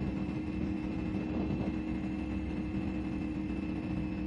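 CFMOTO 450SS's parallel-twin engine running at a steady, even pitch under way, with a low wind and road rumble beneath it.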